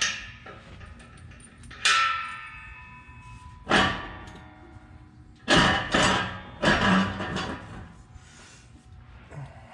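Metal tools and exhaust hardware clanking: about six sharp metallic clangs, each ringing briefly, while the exhaust resonator's clamp bolts are being worked loose.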